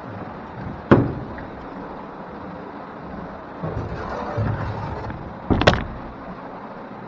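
Sharp hollow knocks on a kayak hull, one about a second in and a louder cluster near the end, with softer knocking in between, over a steady background hiss.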